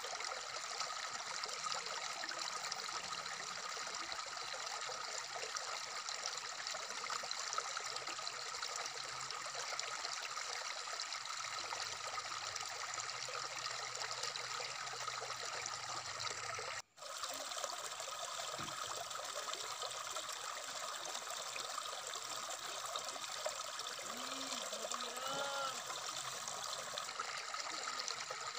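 Shallow stream running over rocks, a steady babbling rush of water. The sound cuts out for an instant about 17 seconds in.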